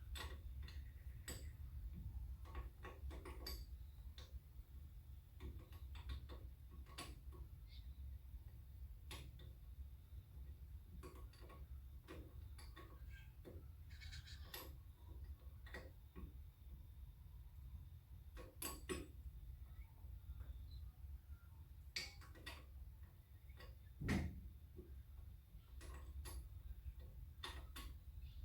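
Irregular light metal clicks and taps of a flare-nut spanner working a brake line fitting on a car's rear brake wheel cylinder, with one louder knock near the end, over a steady low hum.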